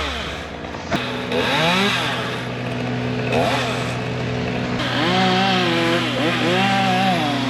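Chainsaw running, its revs rising and falling again and again, over a steady low engine hum.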